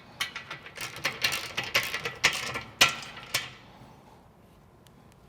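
Light, irregular metal clicks and clinks of M8 screws and lock nuts being fitted and tightened on a steel roller fairlead and bumper bracket. They stop about three and a half seconds in.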